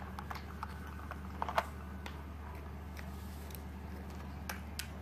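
Light plastic clicks and clacks from a Hot Wheels Stunt n' Go toy car transporter being handled, with one sharper click about a second and a half in and two more near the end, over a steady low hum.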